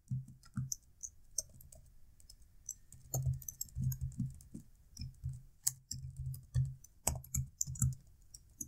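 Computer keyboard being typed on: irregular runs of key clicks, with a sparser stretch about a second in before the typing picks up again.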